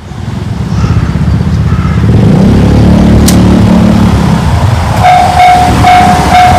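A loud low rumble, then about five seconds in a railway level-crossing warning alarm starts: the JR standard electronic tone, pulsing about three times every two seconds, the signal that a train is approaching.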